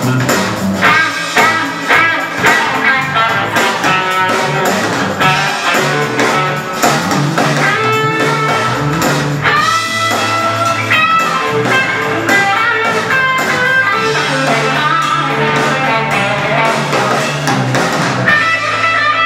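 Electric guitar playing an improvised lead solo: runs of plucked single notes, with several notes bent upward in pitch about eight to eleven seconds in, over sustained low bass notes.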